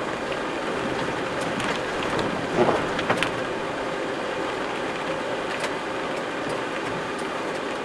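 Steady rain falling, with scattered sharper drop ticks and a brief louder patter of drops about two and a half to three seconds in.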